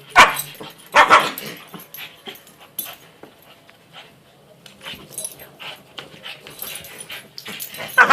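Dogs playing: two sharp barks about a second apart near the start and another near the end, with faint small sounds between as a puggle chews on a bigger dog's ears.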